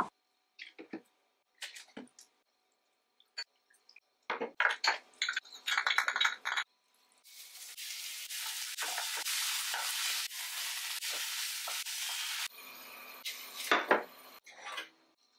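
Kitchen cooking sounds. Utensils clink and scrape against a pan and dishes, then about five seconds of steady sizzling that cuts off suddenly, followed by more clattering.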